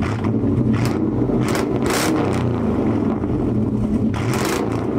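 Cadillac Escalade EXT's 6.2-liter V8 running through an aftermarket exhaust, heard at the tailpipes: a deep, steady exhaust note with a few short hissy bursts.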